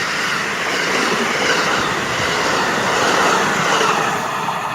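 Amtrak passenger train passing at speed, a loud, steady rushing noise of wheels on the rails.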